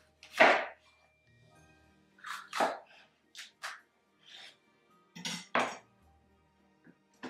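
Chef knife cutting through a jalapeño pepper onto a cutting board: a run of short, sharp cutting strokes, the first the loudest, as the stem is cut off and the pepper is halved lengthwise. Soft background music plays underneath.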